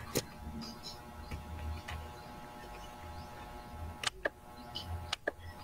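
Isolated clicks from a computer being worked, over a low steady hum: one just after the start, then two quick pairs about four and five seconds in.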